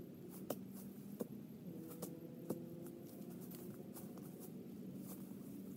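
Faint scattered snaps and crackles of twigs and dry leaf litter under a person moving through undergrowth, a few sharper cracks among them, over a steady low hum.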